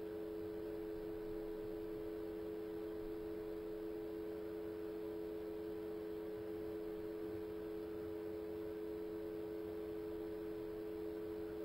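Steady electrical hum of two constant low tones under faint hiss, with no other sound: the background noise of the recording during a silent reading pause.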